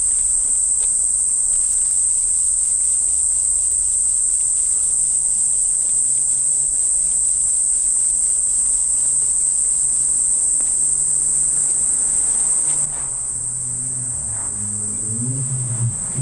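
Steady, high-pitched drone of an insect chorus, which dips slightly about thirteen seconds in. Faint background music enters partway through.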